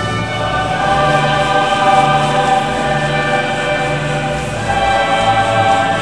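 Background music: a choir singing long held chords.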